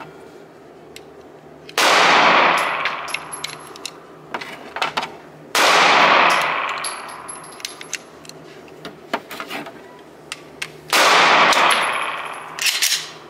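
Three shots from a 9mm Glock 17 pistol fired indoors, each ringing out with a long echo off the range walls, about four and five seconds apart. Light metallic clinks and ticks between the shots, from spent brass casings landing.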